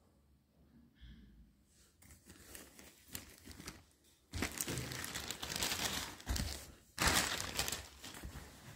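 Shipping packaging crinkling and rustling as it is handled: faint at first, then two loud stretches over the second half.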